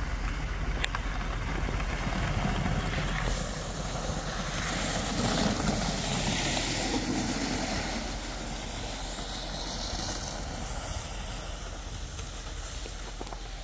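Plastic sleds sliding over packed snow, a steady scraping hiss that swells as they pass close about midway and then fades as they ride away.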